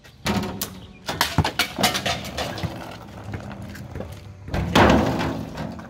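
A run of knocks, clicks and clatters from the parts of a homemade Rube Goldberg contraption being handled and set off. One sharp hit comes about a second and a half in, and a loud rushing scrape follows near the end.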